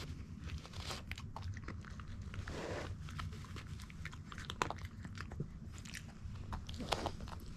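Mame shiba dog crunching and chewing hard treats: many short, irregular crunches and clicks.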